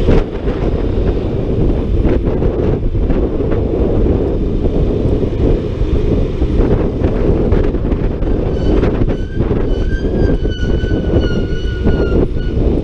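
Wind rushing over the microphone and road noise while riding a Honda ADV 150 scooter. About nine seconds in, a vehicle horn sounds for about three seconds, its pitch sagging slightly.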